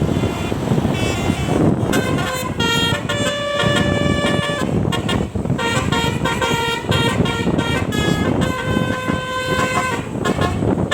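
Telolet bus horns, multi-tone air horns sounding a fast tune of short stepped notes, several tones at once, over bus engine and road rumble. The tune starts about a second in and breaks off briefly about five seconds in before carrying on.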